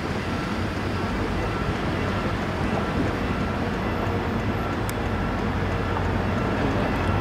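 GM GT26CW-2 diesel-electric locomotive's EMD 16-cylinder two-stroke diesel running with a steady low drone as it approaches hauling passenger cars. A short high tone repeats at even spacing.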